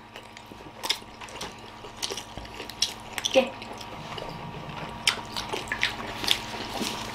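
People chewing whole steamed momo dumplings with their mouths full: scattered wet smacks and clicks of chewing.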